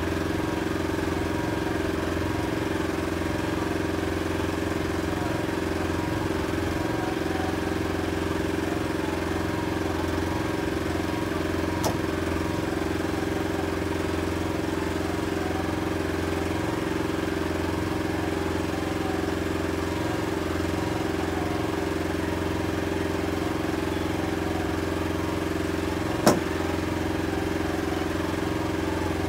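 Boat's outboard motor running steadily at low revs, holding an even pitch. A faint click comes about twelve seconds in and a sharp knock near the end.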